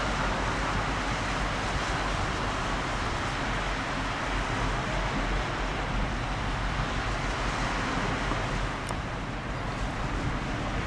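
Steady wind rumble on the microphone over a continuous outdoor hiss of waterfront ambience.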